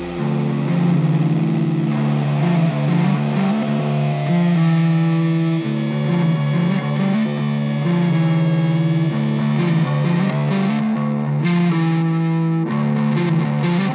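Background rock music led by a distorted electric guitar playing sustained chords and sliding notes.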